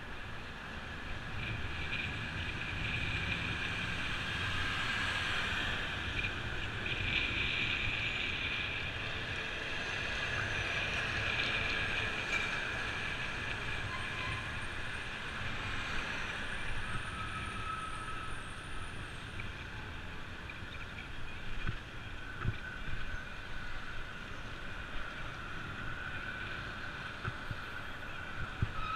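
Road traffic heard from a moving bicycle: a steady rush of passing cars and trucks mixed with riding noise, swelling a little early on, with a few sharp knocks in the last third.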